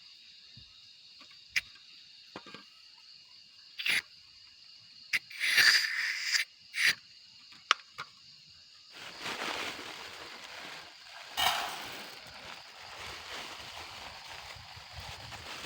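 Camp cooking gear being handled: scattered clicks and knocks, a short rustling burst, then a steady rushing noise from about nine seconds in that surges once, all over a steady high chorus of night insects.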